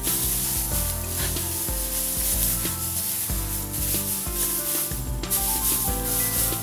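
Dry rice stalks rustling and crunching as they are trodden underfoot to knock the grains off the panicles, in traditional foot-threshing of rice, over background music.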